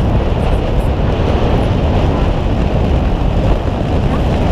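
Steady low rumble of wind buffeting the microphone on the deck of a whale-watching boat at sea, mixed with the boat's engine.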